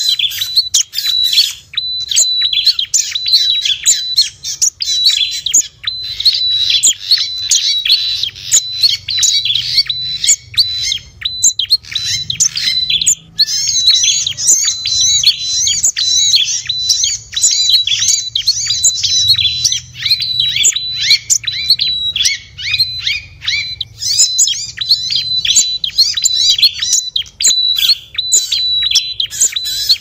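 Small-bird lure recording: a dense, unbroken chorus of small songbirds chirping and twittering over one another, with one high note repeated again and again, over a faint low hum.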